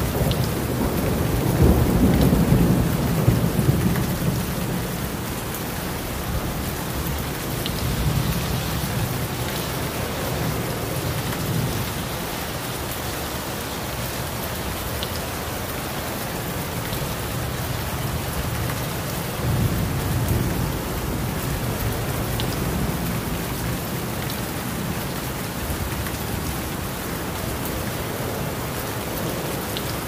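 Heavy tropical downpour falling steadily, with low rumbles of thunder swelling about two seconds in and again about two-thirds of the way through.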